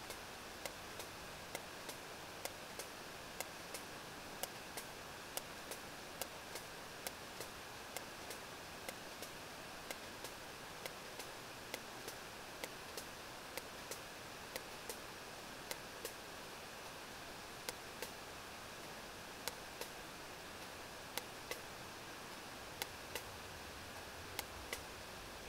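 Sperm whale echolocation clicks picked up by a hydrophone: sharp, evenly spaced clicks about two a second, growing sparser in the second half, over a steady sea-noise hiss.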